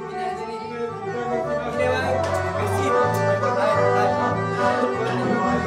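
Music with a bass line that steps from note to note and a melody above it, growing louder over the first two seconds.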